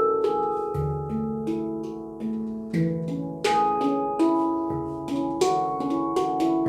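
Handpan in C# Pygmy scale by MAG Instruments, played by hand: single notes struck about once or twice a second, each ringing on and overlapping the next, with a deep low note sounding a few times beneath the melody.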